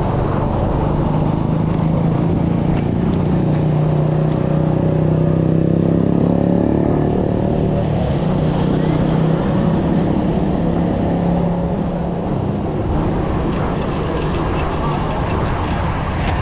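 A motor vehicle engine running steadily close by. Its pitch holds fairly level, with slight rises and falls partway through.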